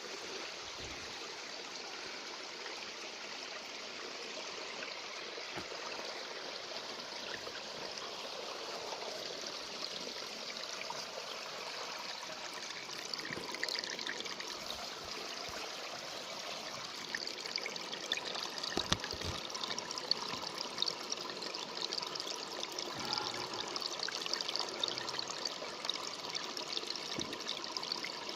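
Running water trickling steadily, like a small stream, with more small crackles from about halfway.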